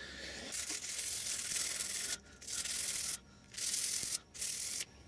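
Sandpaper rubbing by hand on wood in four strokes, the first long and the rest shorter, with short pauses between them.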